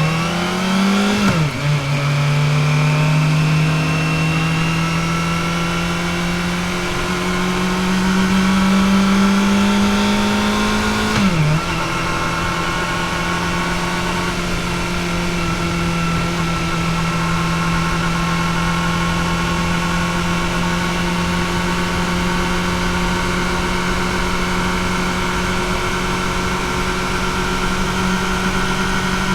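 Kawasaki ZX-4RR's 399 cc inline-four engine through its stock exhaust, pulling under throttle: its pitch climbs slowly and drops sharply at quick upshifts about a second in and again about eleven seconds in, then holds steady at a cruise.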